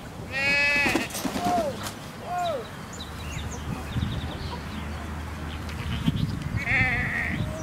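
Farm animals calling: a wavering, pitched call about half a second in, two short falling calls soon after, and another wavering call near the end, over a low rumble.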